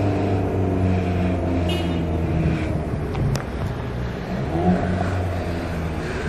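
Car engine running with a low, steady rumble in street traffic.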